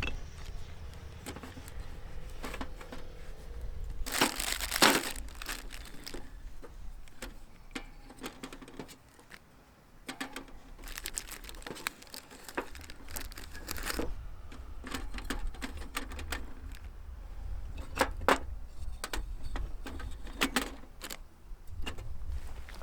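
Crinkling and rustling of something being handled, in two longer bursts, with a few sharp clicks near the end, over a low rumble.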